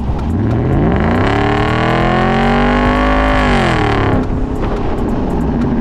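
2008 Porsche Cayenne S's 4.8-litre naturally aspirated V8 being revved through its aftermarket exhaust. The revs climb over about a second, hold high for a couple of seconds, then drop back to a steady idle.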